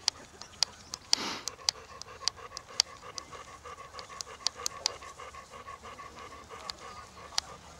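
Quick, rhythmic panting close to the microphone, with sharp clicks scattered irregularly through it and a brief whoosh about a second in.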